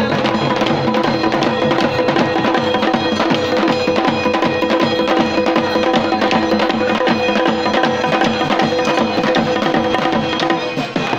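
Rapid, dense folk drumming with sharp wooden clacks, over a steady held pitched tone.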